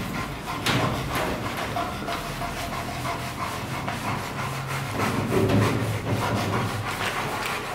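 Rottweiler panting, mouth open and tongue out, over a steady low hum.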